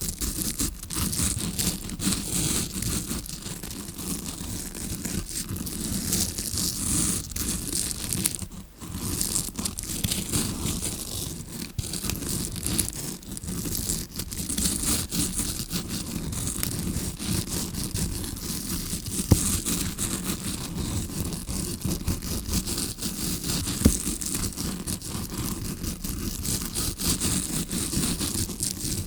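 Tawashi bristle brush scratched over the recorder's microphone in quick, repeated strokes, imitating ear cleaning as heard from the eardrum side: dense bristly scratching. It stops briefly about nine seconds in, and two sharp clicks come later.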